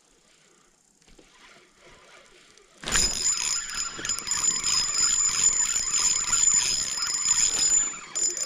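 Spinning reel whirring as a hooked bass is fought and reeled in, a loud steady whir with a high ringing tone that starts suddenly about three seconds in and dips briefly near the end.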